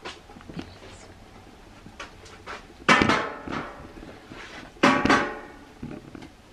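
Kitchenware being handled: two loud clattering knocks about two seconds apart, each ringing briefly, with a few lighter knocks around them.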